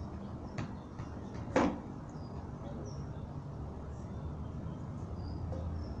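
A steady low background rumble with a few faint clicks, and one sharp knock with a brief ring about one and a half seconds in.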